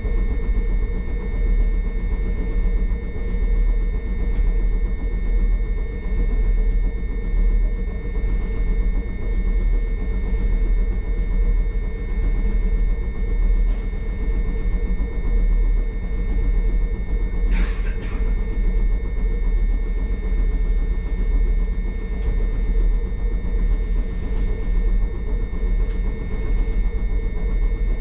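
Hankai Tramway streetcar running between stops, heard from inside the car: a steady low rumble of the wheels on the rails with a constant hum. A short, sharp clack or squeal about two-thirds of the way through.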